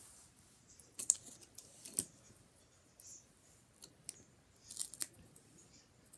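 Hands handling small plastic fingerboard parts and their packaging: scattered sharp clicks with light rustling, the clearest clicks about one, two and five seconds in.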